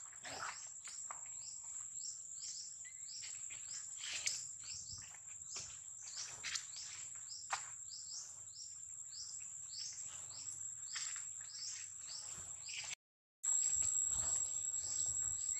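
A steady high-pitched insect drone runs under a quick run of short, falling chirps that repeat two or three times a second. The sound drops out briefly near the end and comes back louder.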